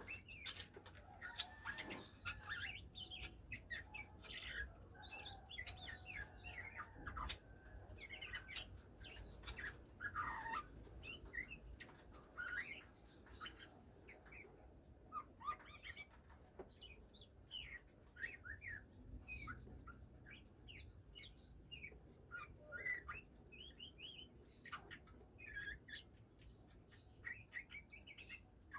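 Oriental magpie-robin (kacer) calling, a loose run of short chirps and quick whistled notes scattered throughout, with a few sharp clicks in the first few seconds.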